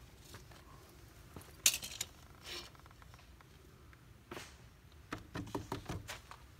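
Scattered light clinks and knocks from handling tools and lumber, with a quick run of several near the end.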